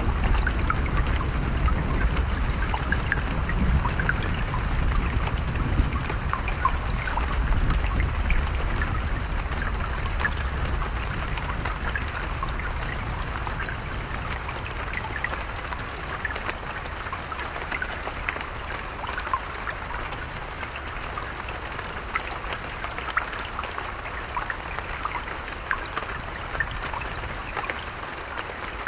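Steady rain with individual drops pattering and ticking. A low rumble of distant thunder dies away over the first half.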